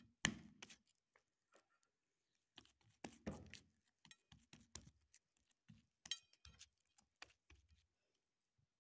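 Faint handling sounds of hands rounding and smoothing oiled balls of msemen dough on a tray: soft dabs, light taps and scattered small clicks, with a louder knock near the start and another about three seconds in, and a brief clink about six seconds in.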